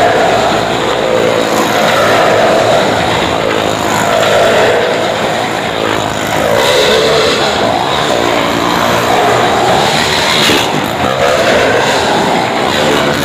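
A motorcycle engine running hard as it circles the vertical wall of a wall-of-death drum. Its sound swells and fades in pitch about every two seconds as the bike sweeps past on each lap.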